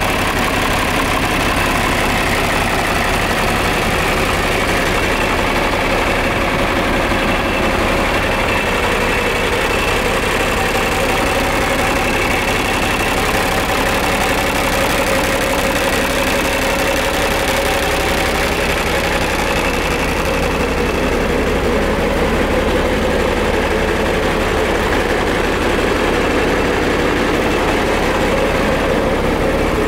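John Deere 4020's six-cylinder diesel engine idling steadily.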